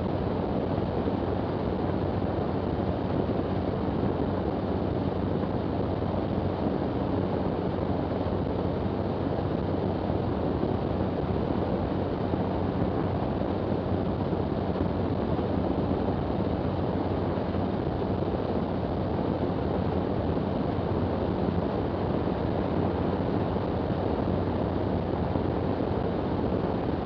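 Jabiru six-cylinder air-cooled direct-drive engine of a Zenith STOL CH 750 light aircraft running steadily in flight, its engine and propeller drone mixed with rushing airflow noise.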